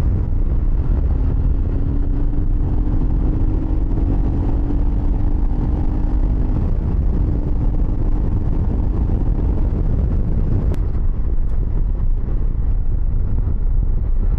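Wind buffeting the microphone on a moving Royal Enfield Himalayan motorcycle, with the bike's engine running steadily underneath. The engine note rises slightly over the first few seconds.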